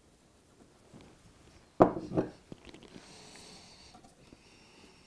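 Two quick knocks about two seconds in as a screwdriver is set down on the wooden baseboard, followed by faint rubbing of hands on model railway track and foam track bed as the point is pressed into place.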